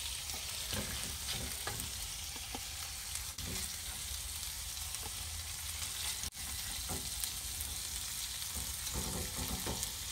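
Redfish fillets sizzling in a hot skillet on a gas stove, a steady high hiss, with scattered light taps and scrapes of a silicone spatula against the pan as the cooked pieces are lifted out.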